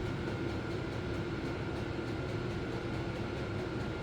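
Steady mechanical hum with a low rumble and two faint steady whining tones, unchanging throughout.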